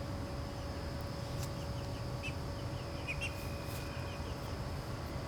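Birds chirping in short quick series over a steady high insect drone and a low outdoor rumble.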